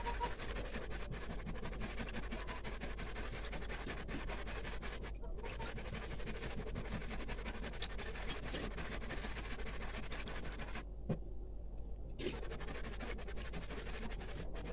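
Coconut curds frying in freshly rendered coconut oil in a wok: a steady crackling sizzle with a metal spatula scraping the pan. This is the last stage of making coconut oil, with the oil already separated and the curds drying out. The sound drops out briefly twice.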